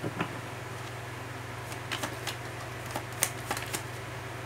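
A deck of tarot cards being shuffled and drawn by hand. A handful of sharp snaps and flicks of card stock come in a small cluster about two seconds in and again just after three seconds, over a steady low hum.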